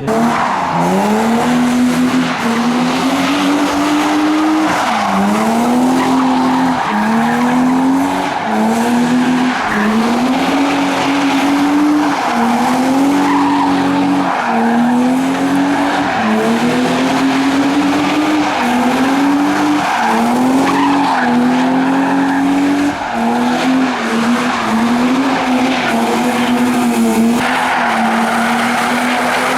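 A car's engine revving hard in repeated rising surges, about every one and a half to two seconds, over continuous tyre squeal: the car is held in wheelspin, sliding on its tyres.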